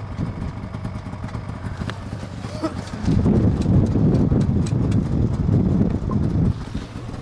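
Low, ragged buffeting on the microphone that starts about three seconds in, much louder than the steady low rumble before it, and cuts off abruptly after about three and a half seconds.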